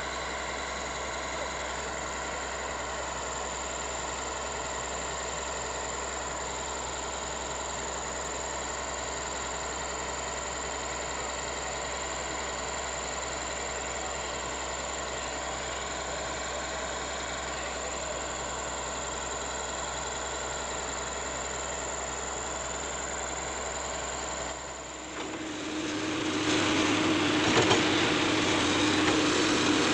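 Heavy excavator's diesel engine running steadily. About 25 seconds in, the sound shifts abruptly to a louder, rougher run.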